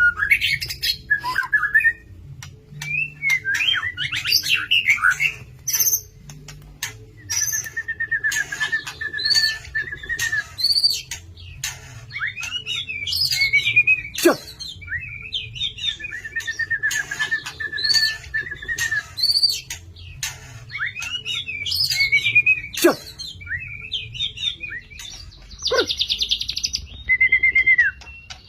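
White-rumped shama singing a long, varied song of whistles and chirps. It mixes in long buzzy trills, a few sharp falling notes and a harsh rattle near the end.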